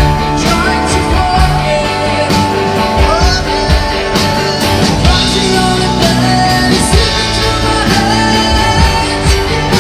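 Live indie rock band playing a song: two electric guitars, bass guitar, drum kit and keyboard, with a man singing lead. Steady drum and cymbal hits keep the beat under held guitar and vocal notes.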